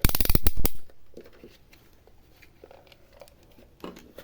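Handling noise of parts being moved on a repair bench: a loud crinkling rattle for under a second at the start, then a few faint taps and clicks.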